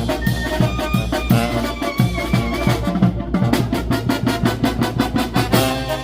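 Mexican banda (brass band) playing: brass over a steady drum beat, moving to a held chord near the end.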